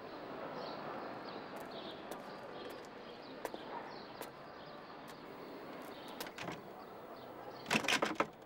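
Wooden entrance door of an apartment building rattled by its handle near the end: a quick cluster of sharp knocks and clatters over about half a second. The door is locked. Before it come faint footsteps over a steady street background.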